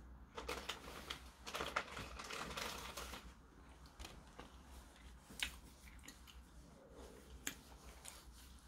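Tissue paper rustling and crinkling as it is pulled out and used to wipe the face, a dense patch of crackles over the first three seconds, then a few sharp clicks.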